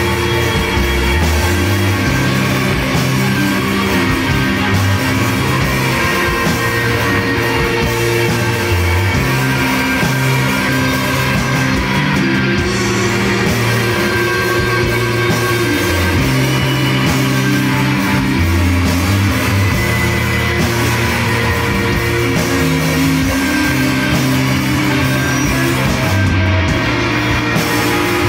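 Rock band playing: electric guitars over a drum kit, with a low line of notes stepping under them.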